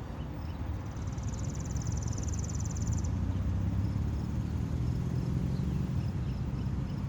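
Outdoor ambience: a steady low rumble under insects chirping in a regular rhythm, with a brief high buzz about a second in that stops near the three-second mark.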